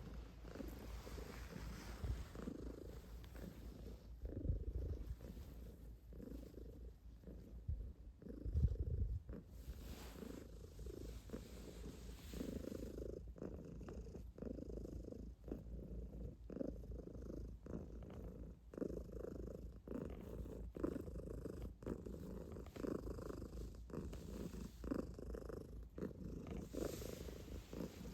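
Calico cat purring close up, a steady pulsing rumble. Two louder low bumps come about four and about eight and a half seconds in.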